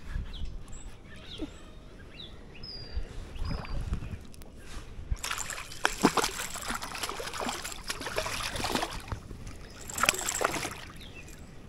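Water splashing and sloshing at the side of a kayak in irregular bursts, heaviest through the middle and again near the end.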